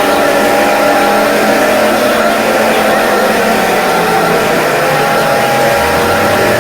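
Mock emergency-alert alarm: harsh, loud, distorted tones over heavy hiss, with a low tone sliding slowly down and dropping lower near the end.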